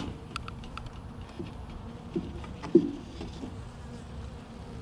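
Honeybees buzzing steadily around an open hive. Over the buzz come scattered light clicks and two knocks from frames being handled, the louder knock about three seconds in.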